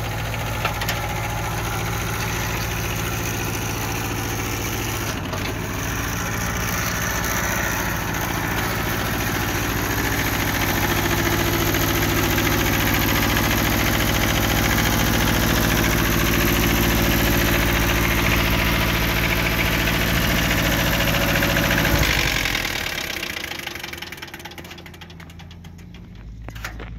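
Kubota L1801 tractor's diesel engine running steadily, a little louder from about a third of the way in. About 22 seconds in it is shut off and dies away.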